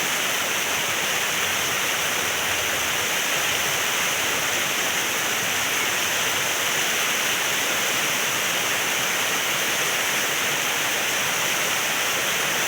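Rushing river water: a steady, even hiss that does not change.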